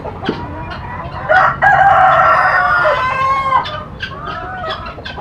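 A tiger chicken rooster crowing once, a long call of about two seconds starting a little over a second in, over the steady clucking of the flock of laying hens.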